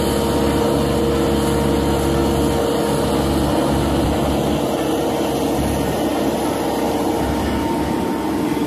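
Crane running steadily while hoisting a load, a constant engine drone with a steady whine over it.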